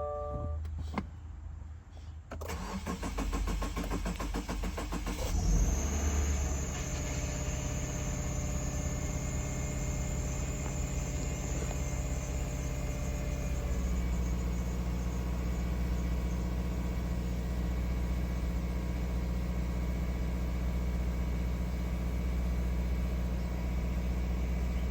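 2016 Subaru Outback being started: the starter cranks for about three seconds before the engine catches, a hard start. It then runs at a raised idle with a thin high whine that fades, and about halfway through it settles to a lower, steady idle.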